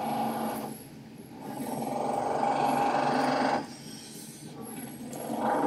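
Power tool from a neighbour's house renovation, running in bursts: at the start, again from about a second and a half to three and a half seconds in, and once more near the end, with quieter gaps between.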